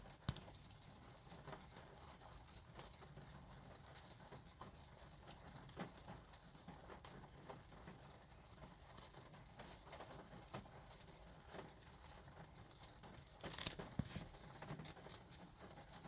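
Near silence in a small enclosed space: faint room tone with scattered small clicks, and a short cluster of sharper clicks a little before the end.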